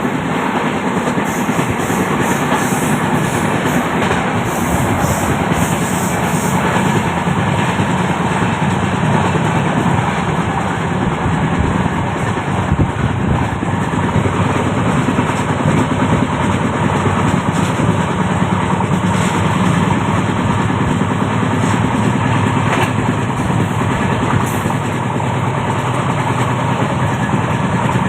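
Steady, loud running noise of the Howrah–Yesvantpur Express passenger train, heard from on board while it travels.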